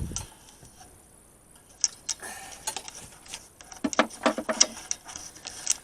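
Scattered light clicks and clinks of small tools and hard parts being handled and set down, with a brief cluster of knocks and a short metallic ring about four seconds in.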